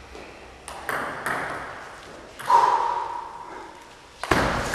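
Table tennis ball being hit back and forth in a rally: a few short, sharp clicks of ball on bat and table, the loudest near the end.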